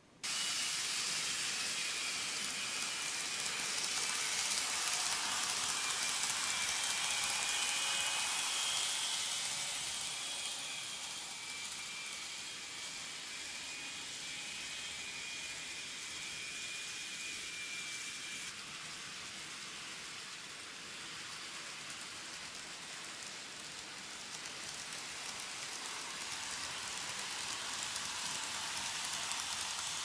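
N-gauge model trains running on the layout: a steady hissing whir of wheels on track with a faint motor whine. It starts suddenly and grows louder near the end as a train comes in on the middle track.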